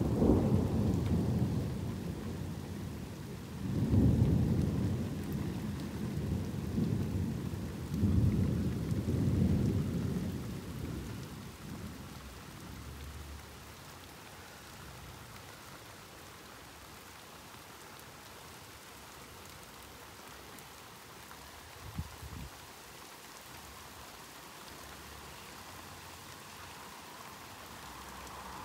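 Thunder rumbling low and loud in three rolling waves over the first dozen seconds, then dying away, with steady rain falling throughout. A brief thump stands out later on.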